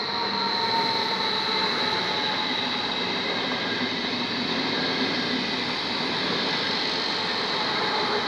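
WESTbahn Stadler KISS double-deck electric multiple unit passing close by at speed: wheels rolling on the rails with a steady high whine over the rolling noise.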